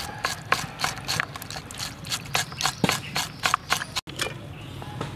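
Knife blade scraping the rough outer skin off a raw beef tongue. It comes in quick repeated strokes, about four a second, each a sharp scratch, and stops about four seconds in.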